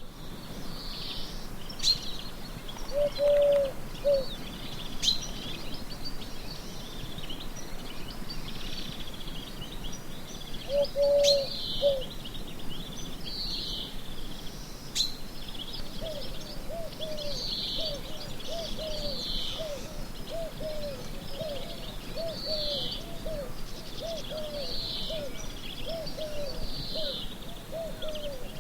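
Birds chirping, with many short falling calls repeated throughout and a few sharp clicks. A lower-pitched call sounds briefly twice, then repeats as a steady series of short notes through the second half.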